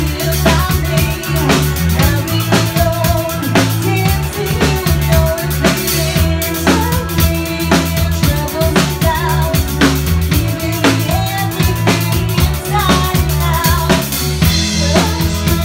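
Live rock band playing loudly: a steady drum-kit beat with bass notes underneath and electric guitar.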